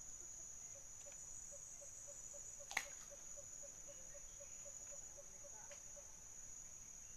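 Steady high-pitched drone of insects, with a faint run of short low pips, about four a second, that stops about six seconds in. A single sharp click about three seconds in is the loudest moment.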